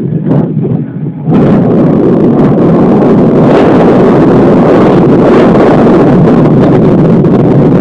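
Strong wind buffeting the microphone: a loud, dense rumble that eases briefly about a second in, then stays loud and steady.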